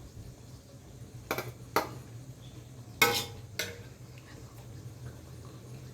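Kitchenware clinking: four sharp knocks of pots, dishes or utensils, the loudest about three seconds in with a brief metallic ring.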